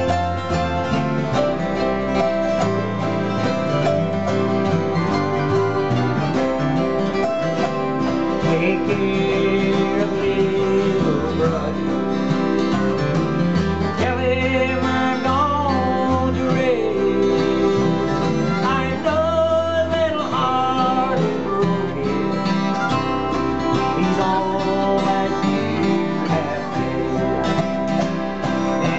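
Acoustic country-bluegrass jam: strummed acoustic guitars, mandolin, acoustic bass guitar and autoharp playing together, with a harmonica near the end.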